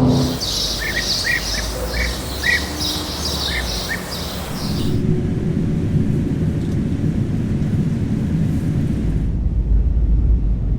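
Birds chirping repeatedly, about two or three calls a second over steady background noise, for roughly the first half. It then cuts to a steady low rumble, which grows heavier near the end.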